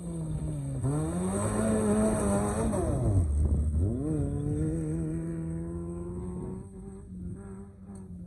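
Maruti Gypsy engine revving up hard as it accelerates on a dirt track. About three seconds in, its pitch dips sharply and climbs again, then it runs steadily and fades as it drives off.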